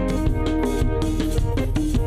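Instrumental worship music from a live church band: held keyboard or guitar chords over a steady bass and drum beat.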